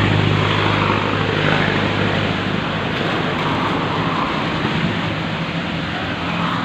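Angle grinder running and cutting into 15 mm plywood: a steady, harsh grinding noise over the motor's low hum.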